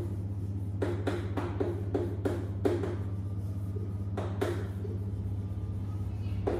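Chalk writing on a blackboard: a quick, uneven series of short taps and scratches as letters are stroked out, over a steady low hum.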